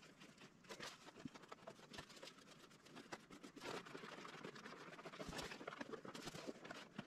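Faint handling noise: scattered small clicks and rustling as frame-bag mounting bolts on a bicycle frame are tightened by hand.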